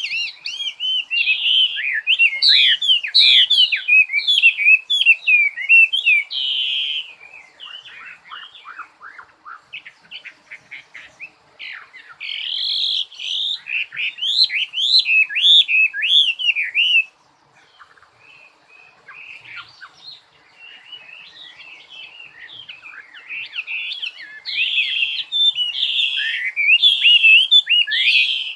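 A songbird singing a long, rapid song of quick, varied warbling and whistled notes. Loud passages alternate with quieter, sparser stretches, and the song drops low for a few seconds about two-thirds of the way through.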